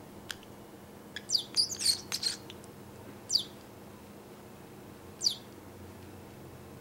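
Pacific parrotlet chirping: a quick run of high chirps about a second in, then two single short falling chirps a couple of seconds apart.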